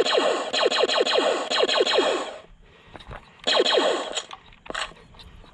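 Laser tag blaster rifle's speaker firing in rapid fire: a quick string of electronic descending zaps, about five a second, for over two seconds, then a shorter burst of them a second later.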